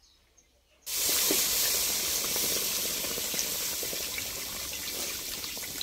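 Water poured into a kadhai of hot fried masala, setting off a sudden loud hiss and sizzle about a second in that goes on steadily, easing slightly, as the water bubbles up in the pan.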